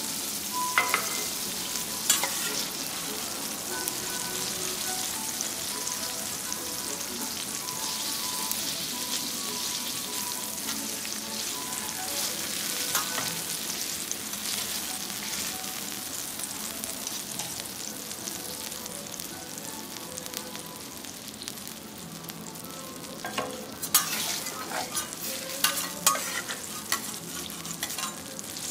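Food sizzling steadily on a teppanyaki iron griddle, with metal utensils clicking and scraping against the hot plate about a second in and again in a run of sharp clicks near the end.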